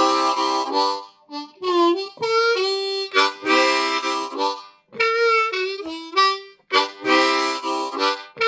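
Seydel diatonic harmonica in C played in short phrases: full chords held for about a second alternate with single-note runs, with brief breaths between phrases.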